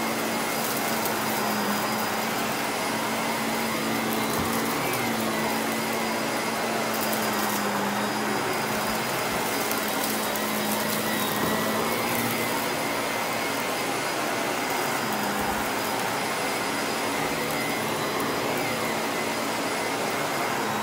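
Vacuum cleaner running steadily in use, a constant motor hum over a dense airflow rush, its pitch dipping slightly every few seconds.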